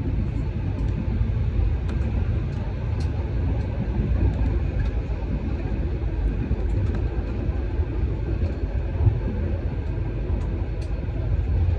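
Steady low rumble of a moving vehicle, with faint scattered ticks.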